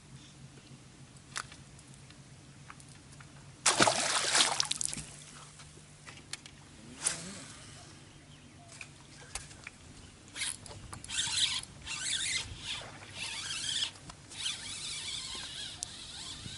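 Handling and casting noises on a bass boat over a faint steady low hum: a loud rushing burst about four seconds in, then scattered clicks and rustles.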